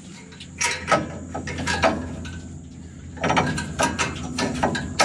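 Ratchet wrench clicking in two short runs, undoing the fasteners that hold a small generator engine's carburetor.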